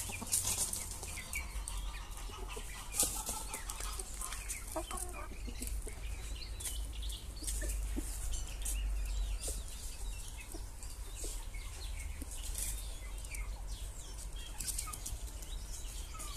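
Aseel chickens clucking in their coop, with a few short calls a few seconds in over frequent short clicks and rustles, and a steady low rumble underneath.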